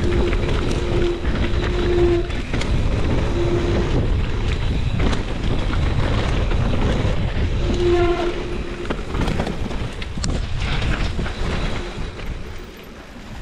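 Mountain bike rolling fast down a rocky dirt trail: a continuous low rumble and rattle of tyres and frame over the ground, mixed with wind noise. Short steady tones from the bike sound a few times, around one, two, three and a half and eight seconds in, and the noise eases near the end.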